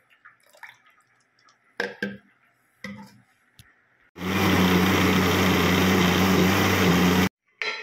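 Electric countertop blender running, blending mango pieces and milk into juice: a loud, steady motor hum for about three seconds that stops abruptly. A few short knocks come before it.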